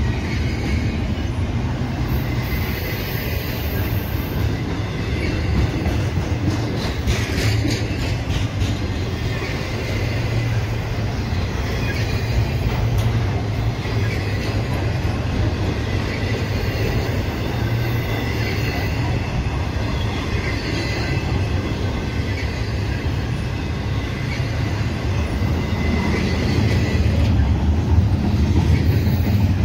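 Double-stack intermodal container train rolling past on steel wheels: a steady low rumble of well cars over the rails, with faint high-pitched wheel squeal and a short run of clicks from the wheels crossing rail joints about seven seconds in.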